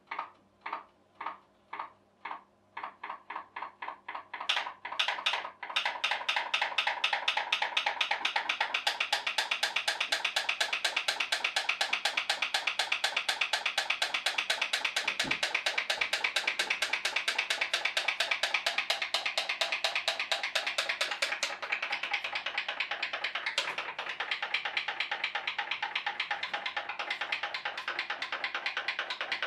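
Pop pop boat's tea-light-heated aluminium boiler starting up: separate pops about two a second that speed up over the first few seconds into a rapid, steady pop-pop. The water in the boiler is flashing to steam and pulsing out of the pipes, driving the boat.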